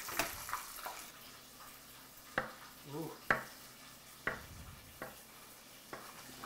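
Kitchen knife slicing dill pickles on a wooden cutting board: single sharp knocks of the blade hitting the board, about a second apart. A faint sizzle of chicken frying in oil fades out near the start.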